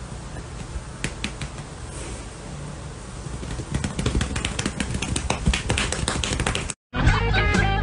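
Rapid, irregular sharp clicks and taps over a low steady hum, growing denser and louder about halfway through. Near the end the sound cuts out for an instant and guitar rock music begins.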